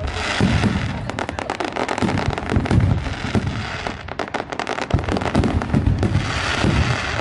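Aerial fireworks going off in quick succession: dense, rapid crackling and popping over repeated low booms.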